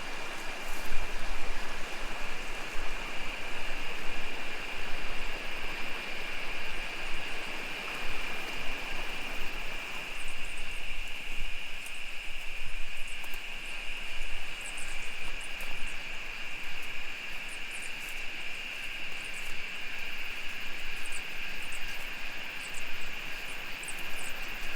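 Steady rushing of river rapids, with a constant high-pitched drone over it and scattered faint crackles from about halfway through.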